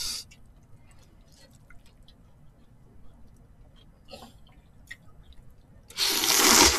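Thin somyeon noodles slurped in one loud, wet suck near the end, after a few quiet seconds of faint small clicks and a brief smaller slurp.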